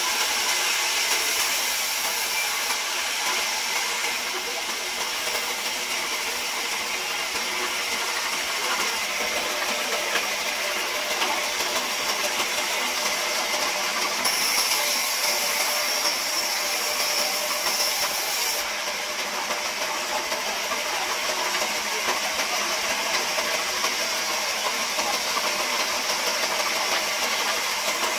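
Large wheel-type band saw running and cutting wood, a steady hiss from the blade in the cut. For a few seconds about halfway through the hiss turns brighter and sharper.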